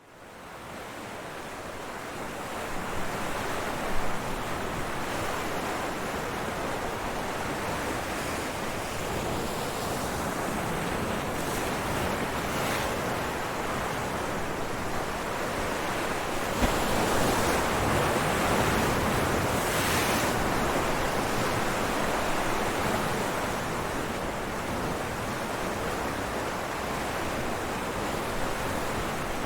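Sea waves breaking on rocks: a continuous wash of surf that fades in over the first couple of seconds and swells louder a little past the middle.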